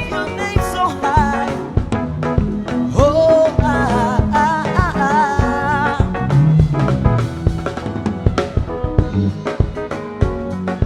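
Live band playing, with a drum kit keeping a steady beat of snare and rimshot hits under the instruments and a singer's voice wavering in pitch through the middle.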